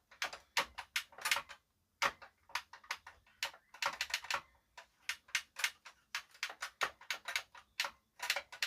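Rapid, irregular clicking of the JVC RX-320V receiver's front-panel buttons being pressed over and over, several clicks a second in quick clusters, as the controls are tested after their contacts were cleaned.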